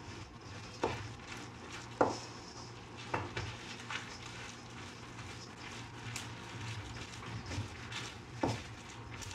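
Hands mixing and kneading farmer's cheese dough in a stainless steel mixing bowl, with a few irregular sharp knocks against the metal bowl, the loudest about two seconds in.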